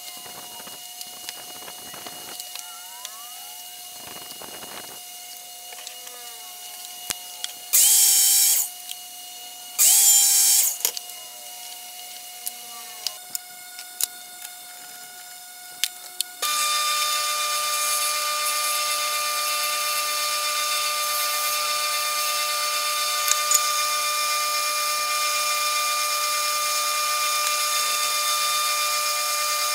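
Small clicks and rattles of parts being handled, then two loud hissing blasts of about a second each. About halfway through, a Delta bench-top wood lathe starts and runs steadily as a 10 mm brad point bit in the tailstock drill chuck bores through a spinning acrylic pen blank.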